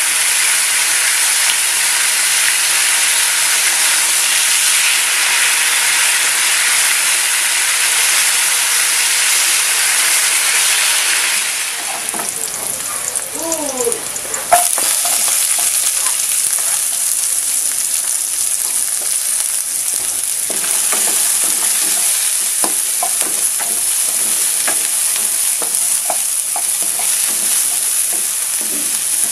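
Pork steaks frying in oil in a pan, a steady sizzle. Partway through it gives way to a quieter stretch with a few short gliding squeaks and a sharp click, then garlic and onions sizzling in a pan while a spatula stirs and scrapes against it.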